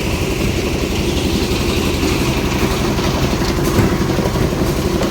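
Engine of a concrete mixer lift machine running steadily, a continuous rapid pulsing.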